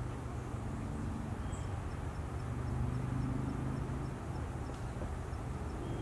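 Low hum of motor-vehicle engines, as from passing traffic, swelling about halfway through, with a faint, fast, high ticking in the background.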